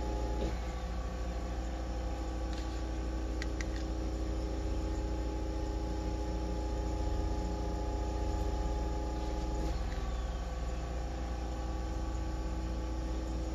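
A steady electrical hum: a low drone with several constant tones above it, whose higher tones shift slightly nearly ten seconds in. A couple of faint clicks come about three seconds in.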